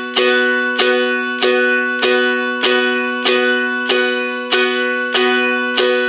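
Seagull/Godin M4 spruce mountain dulcimer tuned G-D-G, strummed downward on a B chord at the second fret: about ten even strums, roughly three every two seconds, each ringing out before the next.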